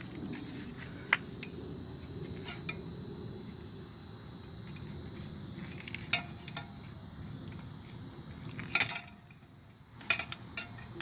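Scattered metallic clinks and knocks of scrap metal parts from a stripped ice maker being handled, over a low steady rumble that drops away about nine seconds in. The loudest clink comes near nine seconds, with a few more near the end.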